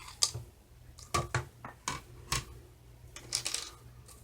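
Thin metal cutting dies, cutting plates and paper being handled and set down: several light clicks and clinks, then a short rustle about three and a half seconds in.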